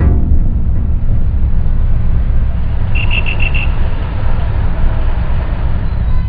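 City street traffic noise, a heavy, steady low rumble of vehicles. About three seconds in, a short run of about six quick high-pitched beeps sounds.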